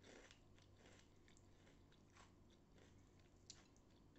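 Faint crunching of a breaded, deep-fried onion ring being bitten and chewed, a scatter of small crisp clicks.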